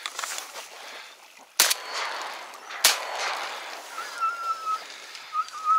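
Two shotgun shots about a second and a quarter apart, each with a short echo trailing off. A thin, wavering whine follows near the end.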